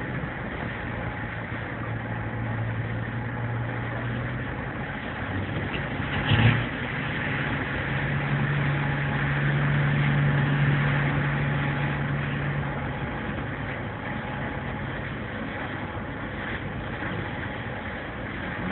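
Boat engines droning, the pitch stepping up about eight seconds in and getting louder around ten seconds, over a hiss of wind and churning wake water. A single sharp knock about six seconds in.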